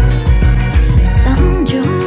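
Upbeat song with a steady drum beat; a singing voice comes in about halfway through.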